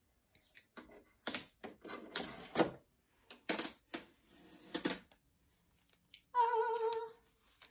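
Protective tape being peeled off a new sewing machine's plastic casing in about five short ripping pulls. Near the end there is a brief wavering pitched tone, like a short hum.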